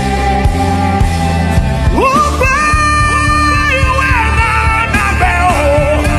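Gospel worship music with a steady bass pulse; about two seconds in, a singer's voice slides up to a high held note and then falls away.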